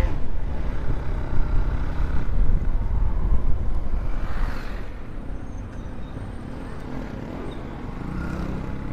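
Street traffic heard from a moving motorcycle: a steady rumble of wind and engine noise, with a louder swell about four seconds in as a truck draws alongside. The noise is quieter from about five seconds in.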